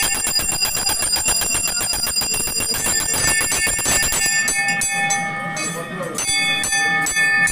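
Temple bells ringing with rapid, fast-repeating strokes that thin out about four seconds in, their high ringing tones carrying on throughout.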